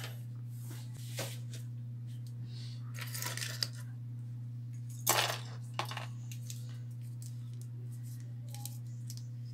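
Hands handling a CPU heatsink fan and its plastic wrapping: scattered crinkles, clicks and a few sharp taps, the sharpest about five seconds in, over a steady low electrical hum.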